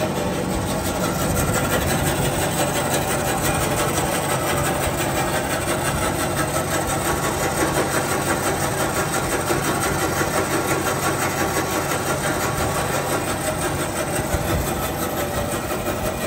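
DoAll Model C-5A metal-cutting band saw running steadily, its drive motor and blade making a continuous mechanical drone.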